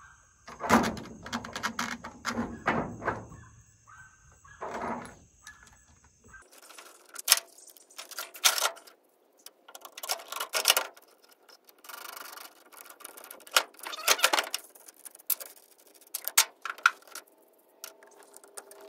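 Metal parts of a kayak roof rack and its bolts clinking and knocking as they are fitted together by hand: an irregular series of clicks and taps.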